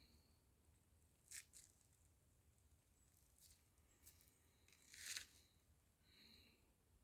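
Near silence with a few faint, sudden crackles or ticks, the loudest about five seconds in, and a short faint note a little after six seconds.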